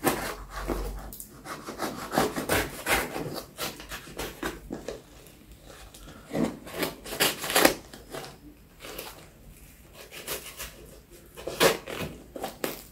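Small knife sawing and slicing through a cardboard parcel wrapped in brown packing tape, in irregular short scraping strokes.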